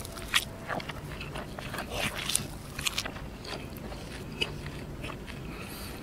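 Close-up mouth sounds of a person biting and chewing roti canai topped with fried egg: irregular small clicks and crackles from the flaky bread and wet chewing.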